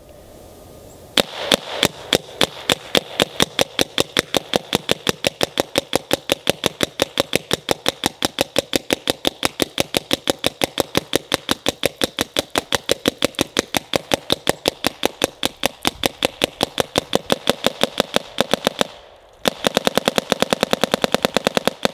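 Planet Eclipse Etha 2 electronic paintball marker firing steadily with its eyes off, spitting water instead of paint: a long, even string of sharp air shots at about four a second, starting about a second in. Near the end, after a short pause, comes a faster burst. It keeps cycling without a miss though the barrel is iced over and the gun is unlubed in sub-freezing cold.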